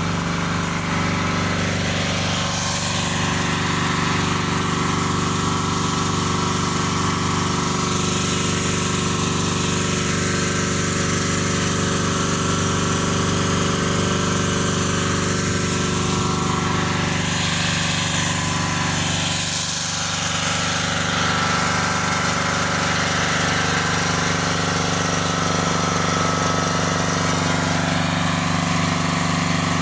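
Generator engine running steadily, a constant mechanical hum.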